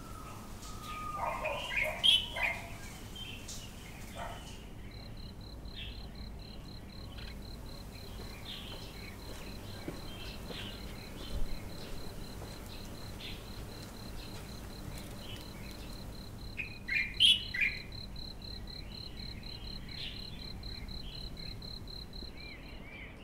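Birds chirping, loudest near the start and again in a short cluster about three-quarters through, over a steady high, evenly pulsing insect trill that begins about five seconds in and runs almost to the end.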